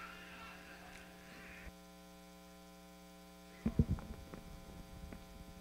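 Steady electrical mains hum in the sound system, with a click a little under two seconds in. Past the halfway mark come a few dull thumps and clicks of a clip-on microphone being handled during a mic check.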